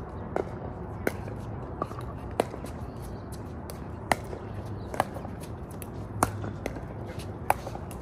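Pickleball paddles hitting the hollow plastic ball: about nine sharp pops at irregular intervals, some louder and some fainter, over a steady low hum.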